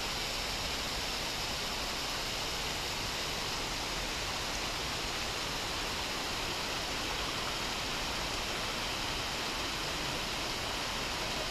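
Steady rushing of fast-flowing water, an even hiss at one level throughout.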